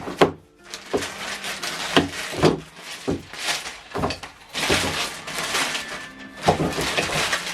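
Packaging being handled: irregular knocks and thuds with bursts of rustling and scraping from cardboard, foam and plastic being moved about.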